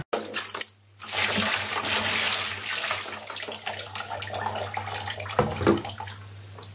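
Water pouring and splashing into a container, loudest in the first few seconds, with a few knocks near the end.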